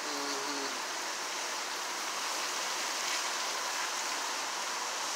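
Steady rain falling, an even hiss without breaks.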